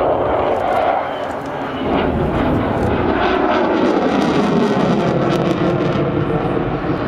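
Jet engine noise from a military fighter jet in a display flypast: a loud, steady roar that dips briefly about a second and a half in, then builds again with a crackling edge.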